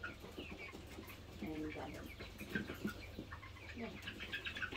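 Hens in a wire cage clucking faintly in short, scattered calls, over a low steady hum.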